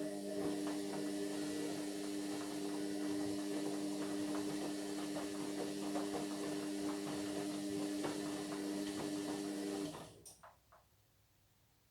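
Indesit MyTime washing machine running a stage of its cycle: a steady electric hum with water hissing and rattling over it. It cuts off about ten seconds in, followed by a few faint clicks.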